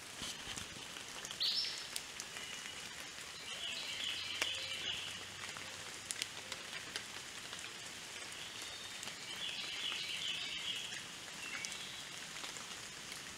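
Woodland ambience: a steady hiss of running water from a small creek, with a few short bursts of high bird chirping coming and going.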